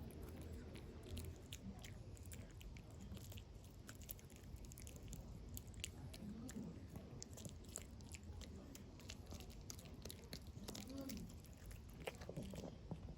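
A dog gnawing on a chew: a steady run of wet, smacking chews and small irregular clicks of teeth on the chew.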